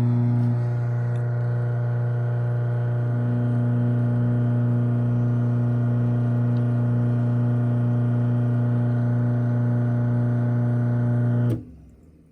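Craftsman half-horsepower chain-drive garage door opener motor running steadily while closing the door, an even, loud hum with a slight wavering. The motor shuts off abruptly near the end, leaving a short fading tail.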